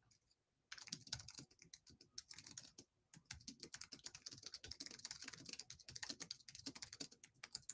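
Faint, rapid typing on a computer keyboard: quick irregular key clicks starting about a second in and stopping just before the end.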